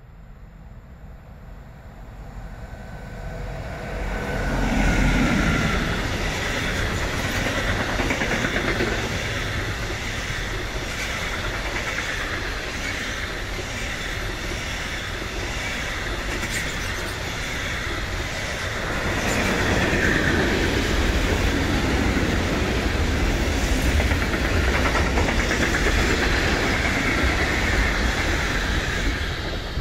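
Freight train passing close by. It grows louder over the first few seconds as it approaches, then a long string of freight wagons (sliding-wall boxcars, then gas tank wagons) rolls past with a steady wheel rumble and clatter over the rail joints.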